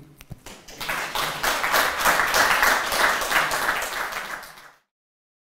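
Audience applauding, the clapping building up about half a second in and cutting off suddenly near the end.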